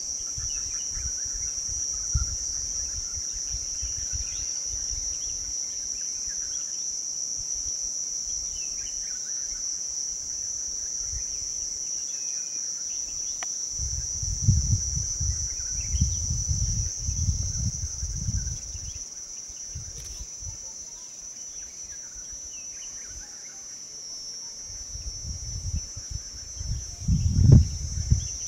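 Steady, high-pitched insect drone in forest, with faint chirping bird calls scattered through it. Low rumbles come and go about halfway through and again near the end.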